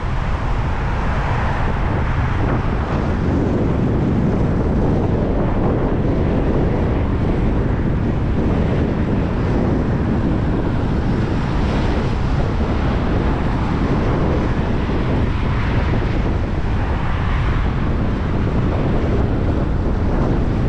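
Strong wind blowing across the microphone, a loud, steady rush of noise heaviest in the low end.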